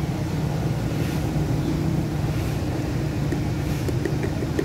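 Steady low engine rumble, with a few faint light clicks near the end.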